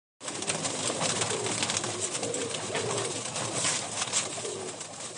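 Pigeons cooing over a steady hiss, growing fainter toward the end.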